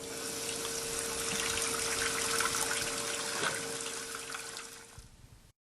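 Water running from a tap in a steady rush, with a faint steady tone in it, fading out near the end.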